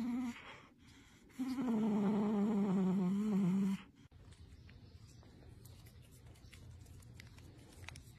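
A dog vocalizing: a brief note at the start, then one long, slightly wavering drawn-out call of about two seconds.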